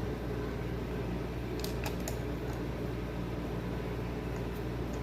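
A few light clicks of small tools and screws being handled during reassembly of a weed trimmer, over a steady low hum.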